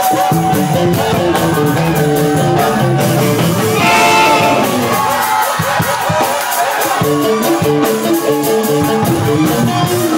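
Live band playing an upbeat groove: a repeating guitar and bass riff over a steady drum beat. The bass line drops out briefly about six seconds in.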